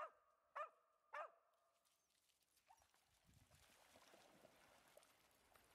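A dog gives three short, high barks in quick succession in the first second and a half, then splashes as it runs through shallow river water.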